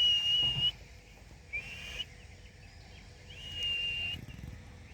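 Parrot giving three whistled calls. Two are long and held level, and a shorter one in between rises at its end.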